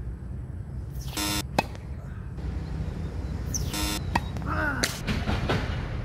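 Tennis serves: sharp pops of the racket strings striking the ball, about a second and a half in and again near five seconds, with two short buzzing tones in between.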